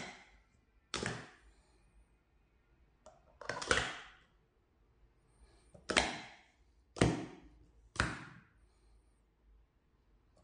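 Hard plastic sport stacking cups being downstacked by hand, slid down and nested into columns. This gives about six sharp clattering clacks, one every second or two, with the one about four seconds in drawn out longer.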